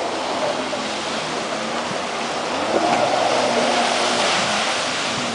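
A jet ski's engine running out on the water, its pitch rising and falling, over the steady wash of small waves breaking at the shoreline.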